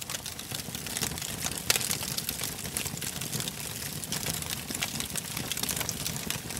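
Wood fire crackling and popping in the firebox of a large wood-fired wok stove, over a low steady rush; one louder pop comes a little under two seconds in.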